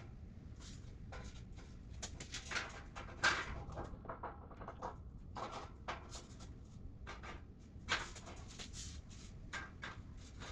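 Irregular knocks, clicks and scrapes of a welded steel shelving unit's parts being handled and fitted into the frame, with the sharpest knocks about three and eight seconds in.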